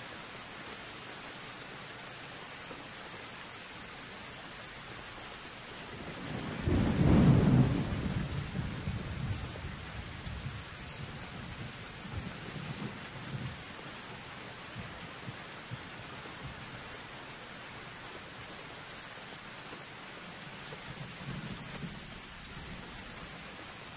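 Steady hiss with a deep rolling rumble that swells about seven seconds in and dies away slowly, then fainter rumbles near the end.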